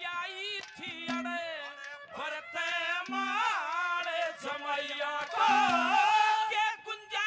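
Haryanvi ragni: a male voice sings long, wavering, ornamented notes without clear words, with four short low steady notes from the accompaniment between the phrases. It grows louder a little past halfway.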